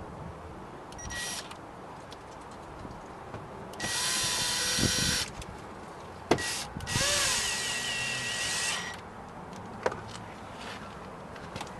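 Cordless drill-driver running screws back into a car door trim panel in three runs: a short burst about a second in, then two longer runs of about a second and a half and two seconds, with a few sharp clicks between them.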